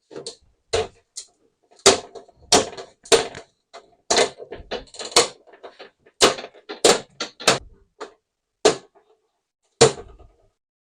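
Irregular sharp clicks, snaps and knocks as the LED backlight strips are taken off an LCD TV's back panel, about fifteen in all, stopping shortly before the end.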